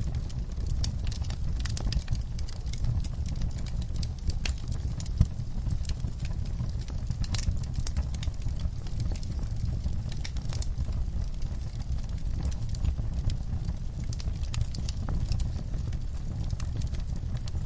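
Fire crackling: a steady low rumble of burning with frequent, irregular sharp crackles and pops, one louder pop about five seconds in.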